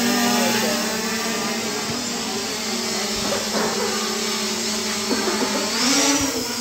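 Quadcopter camera drone's propellers humming at a steady pitch while hovering just off the ground, the pitch rising near the end as the motors speed up to climb.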